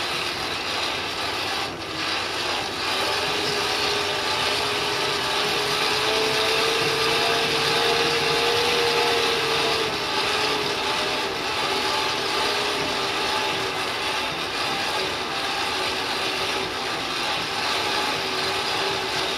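Coal forge blower running steadily, a whine over a rush of air through the fire, its pitch rising a little about three seconds in and dropping back near the middle.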